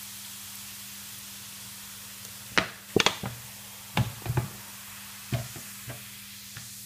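Cola fizzing in a sink around a pewter teapot, a steady hiss, with several sharp knocks and clicks from about two and a half seconds in.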